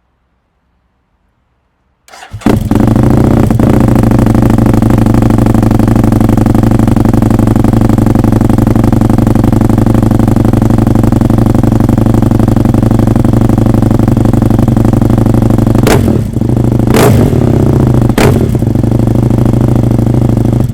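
Husqvarna Nuda 900R's parallel-twin engine, fitted with a LeoVince exhaust and titanium headers, starting up about two seconds in and then idling steadily and loudly, with a few short throttle blips near the end.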